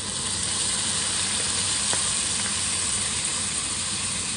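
Beef slices and tofu cubes sizzling steadily in a hot frying pan as about 50 ml of water goes in, a continuous frying hiss.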